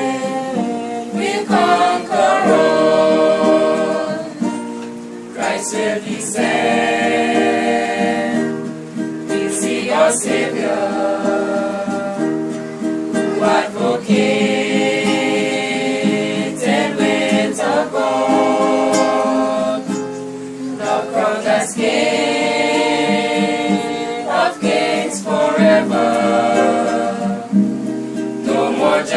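A small group of voices singing together from song sheets, accompanied by an acoustic guitar, in long held sung notes phrased every couple of seconds.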